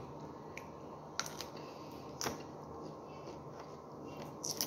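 A few short, sharp crisp snaps and crunches from a broccoli stalk being broken apart and eaten, over a steady low room hum.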